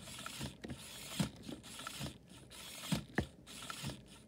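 Small LEGO electric motor running the car's plastic gears, a whirring hiss broken by repeated short clicks at uneven intervals.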